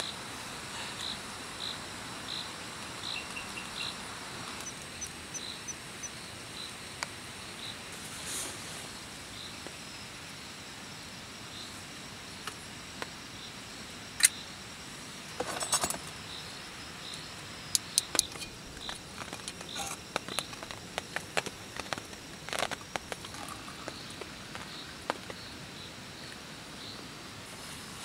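Insects chirping steadily in the night background, a regular pulsing chirp in the first few seconds. From about halfway through comes a run of sharp clicks and clinks as metal mugs, a glass and camp cooking gear are handled on the table, the loudest click about halfway in.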